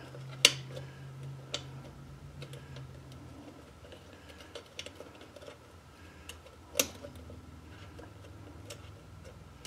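Small metal clicks and taps of headlight retaining-ring screws being handled and started by hand, a few scattered sharp clicks with the loudest near the end, over a low steady hum.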